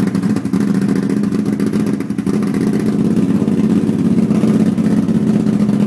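Motorcycle engine running steadily, with a brief dip in level about two seconds in.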